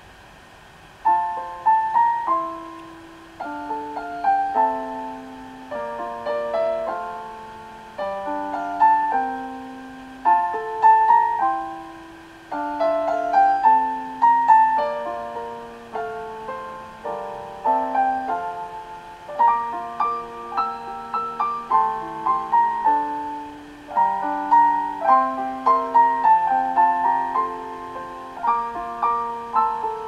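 Background piano music, a melody of struck notes and chords, each note sounding and fading, starting about a second in.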